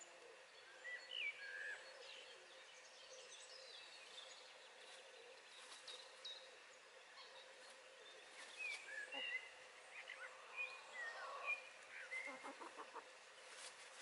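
Faint birdsong and calls of small songbirds: short, high chirps and quick sliding notes, in a brief flurry about a second in and a busier run from about eight seconds in until near the end.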